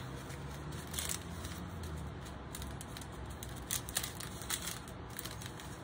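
Small plastic zip bags of diamond-painting drills being handled, giving faint crinkles and a few short crisp clicks every second or so.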